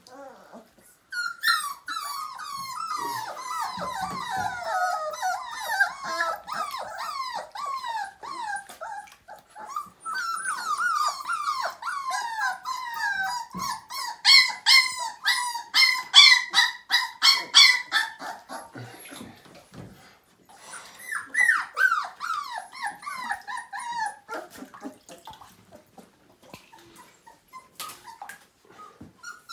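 Several five-week-old Siberian husky puppies whining and crying, many high, wavering cries overlapping, with a quick run of sharp yelps midway. The puppies are wet from their first bath. The crying mostly stops for the last few seconds.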